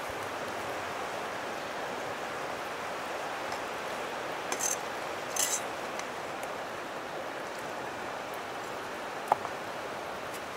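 A steady rushing noise, with two short rustling scrapes about halfway through and a single sharp click near the end.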